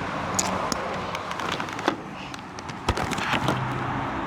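An engine running steadily under a background of street noise, with several sharp clicks and knocks and a heavier thump about three seconds in.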